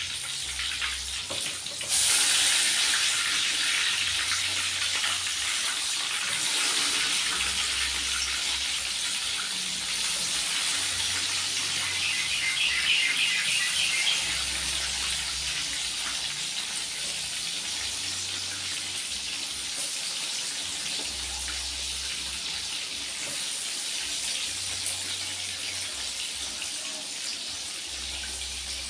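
Tempeh slices frying in hot oil in a wok: a steady sizzle that jumps louder about two seconds in as slices are dropped in, and swells again around the middle.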